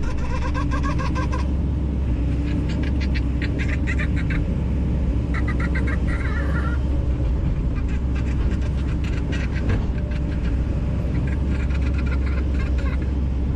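Kobelco 210 LC-9 excavator's diesel engine running steadily, with bursts of rapid high squeaks and clicks from the machine's moving metal parts coming and going.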